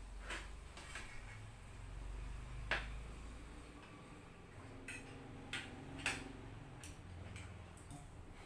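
Scattered light clicks and clinks of eating utensils against plates and bowls, roughly one every second, over a low steady hum.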